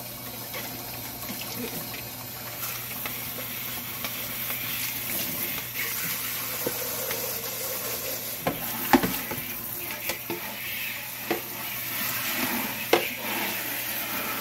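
Kitchen faucet running steadily into a sink while a plastic chick waterer jar and its base are scrubbed and rinsed under the stream, with a few sharp knocks of the plastic parts, the loudest about nine and thirteen seconds in.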